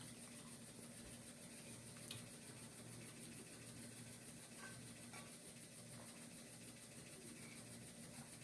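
Faint eating sounds: chewing, and a sip through a drinking straw, over a steady low hum, with a soft click about two seconds in.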